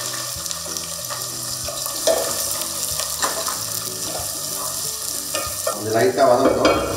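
Sliced onions sizzling in hot oil in a pot, stirred with a wooden spatula. The spatula scrapes and knocks against the pot a few times, with busier stirring near the end.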